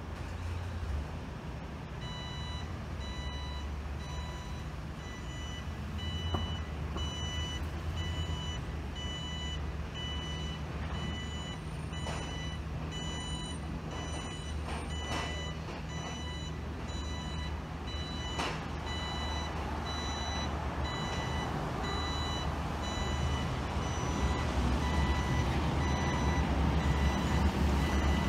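Box truck's reversing alarm beeping in an even repeating pattern as the truck backs up, over the low running of truck engines. The engine noise grows louder near the end.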